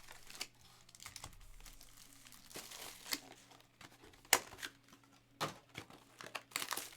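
Packaging crinkling and tearing in irregular sharp crackles, the loudest about four seconds in.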